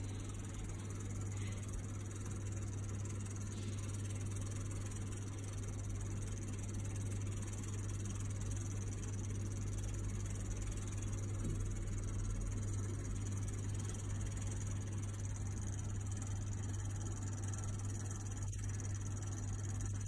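Steady low electrical hum with a constant even hiss from a Franke vertical electric grill running while it heats cheese-topped potatoes.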